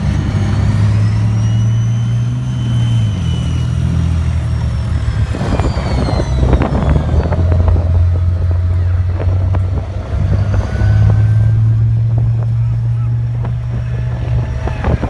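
Tracked armoured vehicles driving past, with a deep, steady engine drone. Thin high whines rise and fall over it, and a run of metallic track clanks comes about halfway through.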